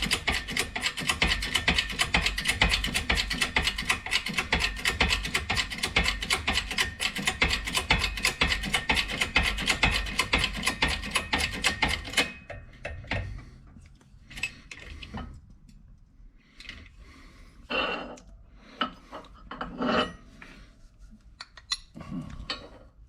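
A shop press forcing a bronze wrist pin bushing into a connecting rod's small end, with a rapid, even clicking that cuts off suddenly about twelve seconds in. A few light metal clinks and knocks follow as the parts are handled.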